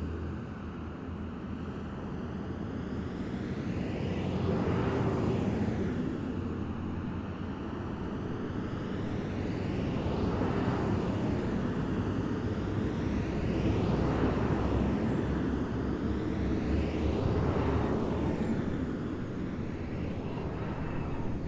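Column of heavy military vehicles driving past one after another: a steady low engine rumble that swells as each vehicle goes by, about every three to four seconds, with a faint high whine sliding slowly down in pitch.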